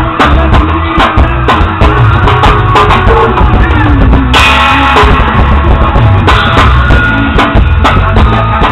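Drum kit played with two thin wooden skewers instead of drumsticks, a steady beat of several hits a second along with a recorded song. A cymbal crash rings out about four seconds in.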